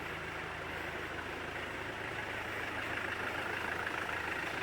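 Land Rover Defender 90's engine idling steadily.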